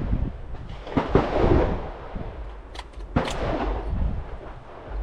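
Two gunshots about two seconds apart, each followed by an echo that trails off over most of a second.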